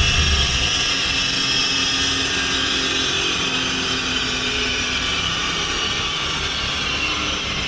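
Machinery running on a chassis dyno: a car's low engine note drops away in the first second, leaving a steady high whine and rush that slowly eases off.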